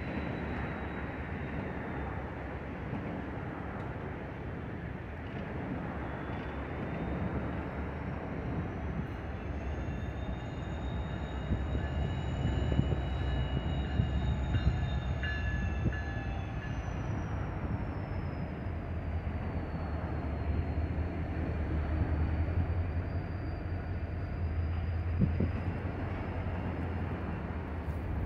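Distant NYSW diesel locomotives with their engines running: a steady low rumble that builds about a third of the way in, with a thin high whine rising and falling slowly over it.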